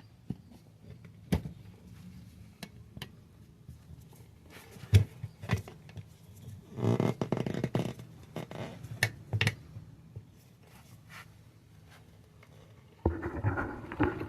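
Tire spoons prying and scraping the tire bead back from the rim lip: scattered clicks and knocks, with a denser stretch of scraping about seven seconds in.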